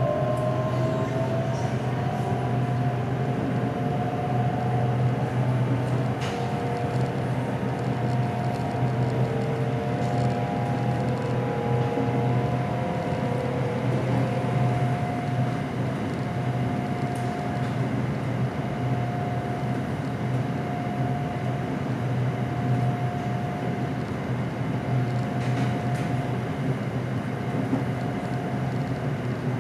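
Bangkok SRT Red Line Hitachi electric commuter train running at reduced speed. Its traction motors whine, rising in pitch in the first couple of seconds and then holding one steady tone, over a constant low hum and rumble.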